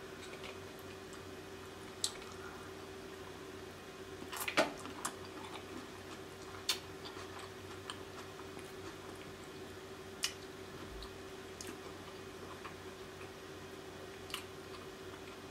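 Close-miked eating of sauce-soaked lobster tail meat: quiet wet squelches, drips and mouth smacks, with about half a dozen short sharp ones scattered through, the loudest about four and a half seconds in.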